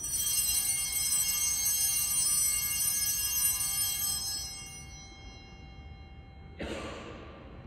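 Altar bells ringing at the elevation of the host, a bright metallic ringing that holds for about four seconds and then fades away. A short, soft burst of noise comes near the end.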